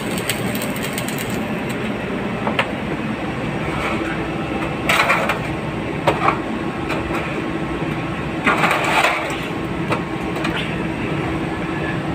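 Electric arc welding electrode cutting rusted steel pipe, crackling and sputtering, which stops about a second and a half in. A steady machine drone carries on underneath, with two brief louder noisy sounds in the middle.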